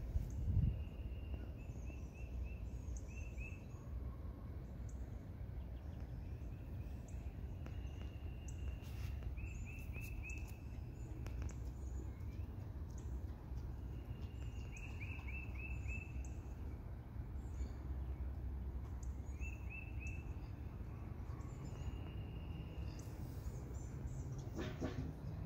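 A songbird singing short phrases of a few quick high notes, repeated every few seconds, over a steady low outdoor rumble. A brief low thump comes about half a second in, and a few clicks near the end.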